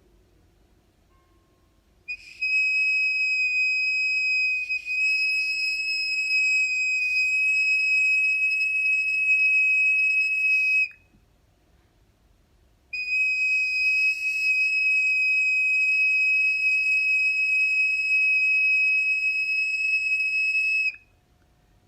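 A handmade medicine flute blown in two long, steady, high whistling notes of one unchanging pitch, each about nine seconds, with a short breath pause between them.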